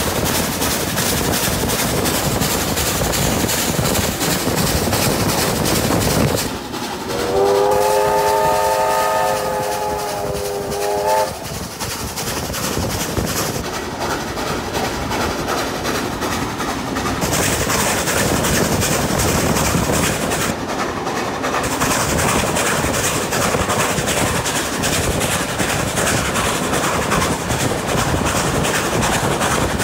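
Steam trains running side by side at speed, a steady rush of wheel and rail noise. About six and a half seconds in, a steam locomotive whistle sounds one long blast of about five seconds.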